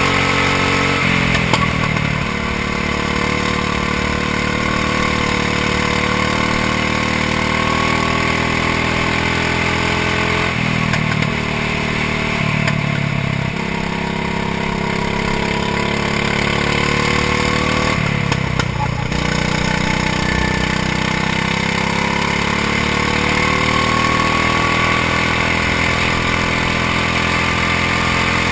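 Go-kart engine running hard on the track, its pitch climbing as it pulls and dipping briefly when the throttle comes off for corners: about a second in, twice in the middle, and once more past halfway.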